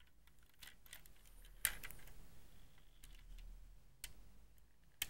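Rubber bands being stretched and hooked onto a LEGO rubber-band shotgun while it is loaded, with the plastic bricks clicking under the fingers. A sharp click comes about a second and a half in, the loudest, with further clicks about four seconds in and near the end.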